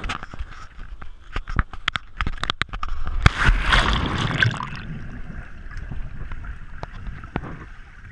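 Water sloshing and gurgling close to the microphone, with many small sharp splashes and a larger splash about three seconds in.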